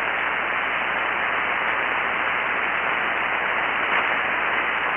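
Steady hiss of band noise from a ham radio transceiver receiving 40-metre single-sideband on 7.188 MHz, squeezed into the narrow voice passband. It comes in suddenly when the operator stops talking. No station is transmitting: the frequency is open and nobody answers the call for emergency traffic.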